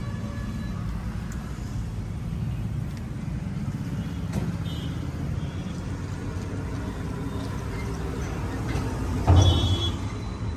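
Steady low rumble of street traffic, with a brief louder sound about nine seconds in.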